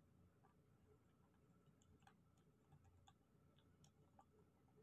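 Near silence with faint, irregular small clicks of a hand tool working on an opened smartphone's board.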